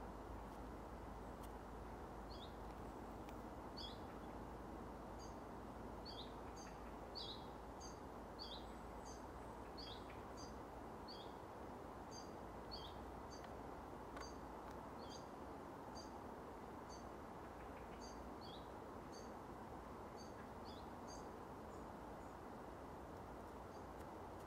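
Willow warbler calls: short, high call notes repeated about once or twice a second, starting a couple of seconds in and stopping near the end, over a steady background hiss.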